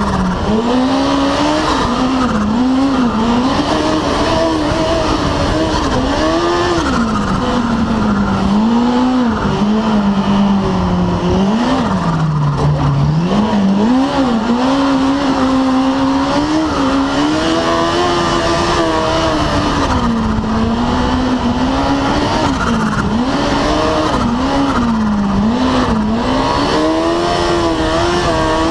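The turbocharged Apex engine of a Polaris RZR 900 side-by-side, driven hard: the revs climb and drop every second or two as the throttle is worked, with a steady hiss over the engine note. The engine note dips lowest about twelve seconds in.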